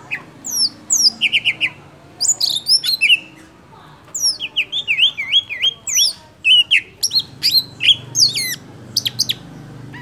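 Leafbird (cucak hijau) singing a fast, varied string of chirps and whistles, many notes sweeping quickly downward and others warbling up and down, in bursts with short gaps.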